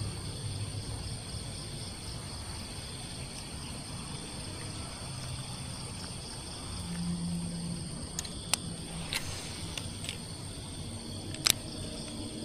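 Steady chorus of insects chirring, one of them pulsing quickly, with a few sharp clicks in the second half, the loudest a double click near the end.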